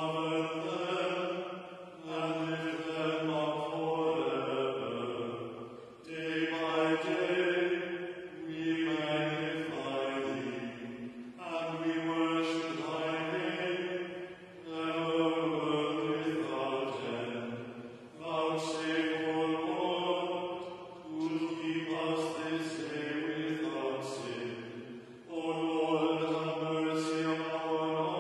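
Liturgical chanting in the Anglican service of Morning Prayer, likely the canticle sung between the first and second lessons. It comes in sung phrases of about two to four seconds, with short breath breaks between them.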